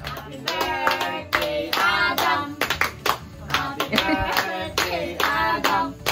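Singing with hands clapping along in rhythm, a celebratory song at a family birthday.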